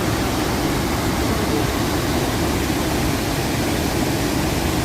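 Dasam Falls' water crashing down in a steady, heavy rush of noise, deep and unbroken.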